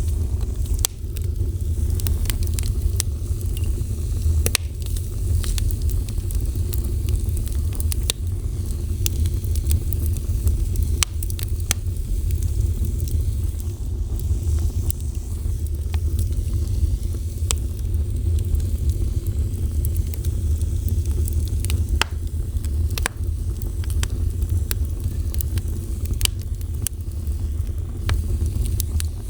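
A fire burning, with irregular sharp crackles and pops scattered throughout over a steady low rumble.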